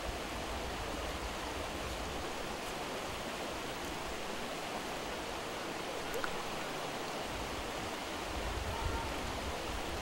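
Steady rushing of stream water, an even wash of noise with no breaks.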